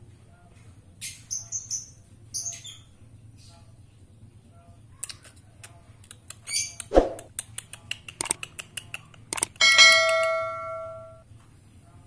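Ruby-throated bulbul (kutilang emas) giving short, high chirped notes, with scattered clicks and a knock. About ten seconds in comes the loudest sound, a bell-like ding that rings for over a second and fades.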